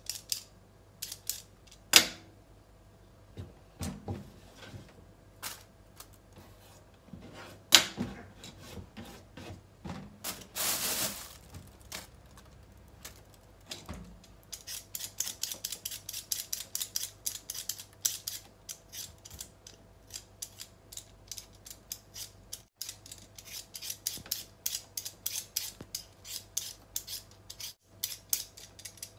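Handheld vegetable peeler scraping the skin off a raw potato in quick repeated strokes, several a second, with a few louder knocks on the wooden cutting board.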